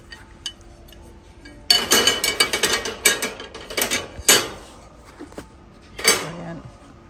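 Metal wire shopping trolley rattling and clattering for a few seconds as shelf brackets are put into its basket, with a second short clatter near the end.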